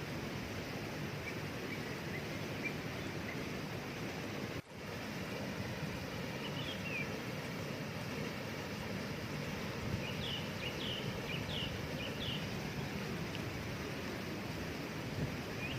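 Waterfall rushing steadily while small birds chirp: a few short high chirps about six seconds in and a quick run of them around ten to twelve seconds. The sound drops out for an instant a little before five seconds.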